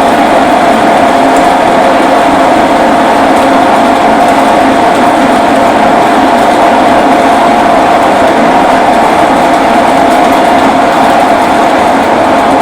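Metal lathe running as a new parting tool cuts into a 45 mm bar of hard metal, a loud, steady machining noise with a constant whine that does not change.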